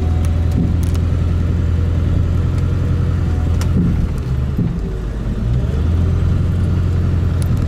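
4x4 pickup truck driving on a dirt road, heard from inside the cab: a steady low rumble of engine and tyres that eases briefly about halfway through, with a few light knocks.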